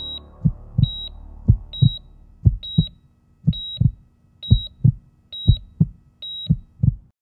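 Heartbeat sound effect paired with a cardiac monitor: a double low thump about once a second, each beat with a short high electronic beep. It stops abruptly near the end.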